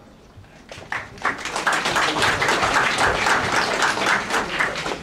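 Audience applauding in a hall: many hands clapping, starting about a second in and thinning out near the end.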